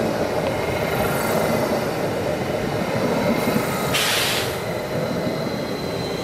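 Passenger multiple-unit train rolling past at close range: steady wheel-on-rail rumble under a thin, steady high whine. There is a short hiss about four seconds in, and the sound eases slightly as the last car goes by.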